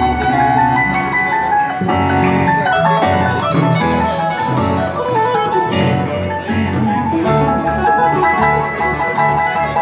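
Yamaha Montage 8 synthesizer played four-handed by two keyboardists, a dense, continuous stream of notes and chords changing throughout.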